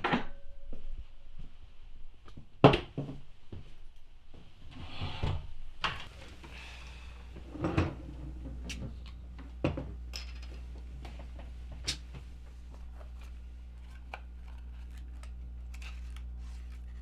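Scattered knocks and clicks of objects being handled, the loudest about three seconds in. A steady low hum comes in about six seconds in and carries on under them.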